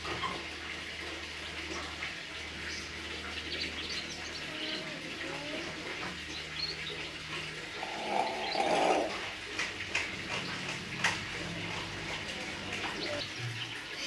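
Hill myna calling in its cage: scattered short whistles and chirps, with a louder, raspy call about eight seconds in and a sharp click a little later, over a low steady hum.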